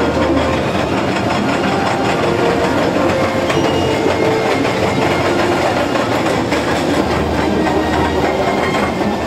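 A ride vehicle's motor running steadily as it travels along, with a continuous rattling clatter.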